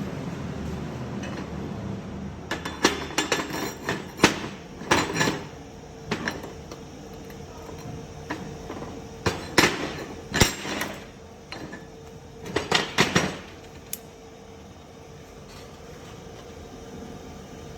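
Sharp metallic clanks of steel being struck, in three bursts of several quick hits, over a steady background hum.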